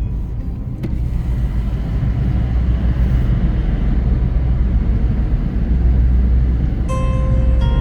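Steady low rumble of a vehicle under way, swelling a little about a second in. A short tone with several evenly spaced pitches sounds near the end.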